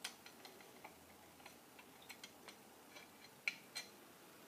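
Faint, scattered light clicks and taps as a thin-spouted oiler is held to the oil holes on the top cover of a Singer 401 sewing machine, its spout touching the metal. The two sharpest clicks come about three and a half seconds in.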